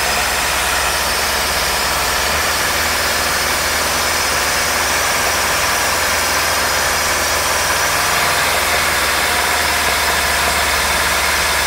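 Mercruiser 140 four-cylinder marine engine idling steadily and sounding terrible. It has a vacuum leak at the head, probably a wrong intake gasket letting it suck air.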